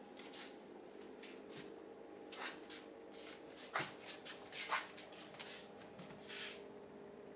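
Hands handling craft materials: a series of short rustling scrapes, with two sharper clicks near the middle, over a faint steady hum.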